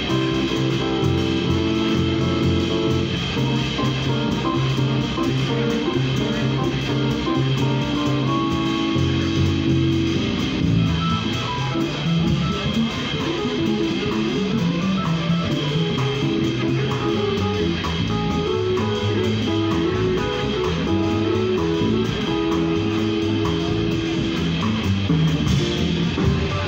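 Live jazz combo playing, with a plucked upright double bass prominent under electric keyboard chords and a drum kit.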